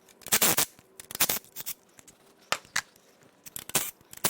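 Hand tools working on an engine: a few short, irregular clicks and scrapes with pauses between them.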